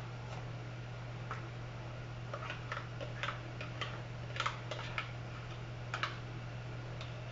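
Metal spoon scraping and tapping against a plastic measuring cup, a run of light clicks through the middle, over a steady low hum.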